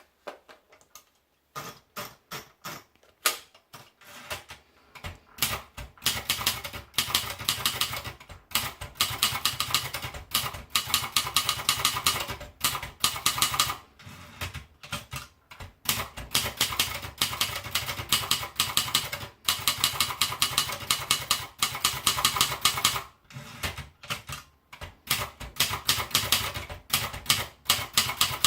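Sperry Remington Idool typewriter being typed on. A few spaced keystrokes at first, then fast, continuous key strikes with brief pauses.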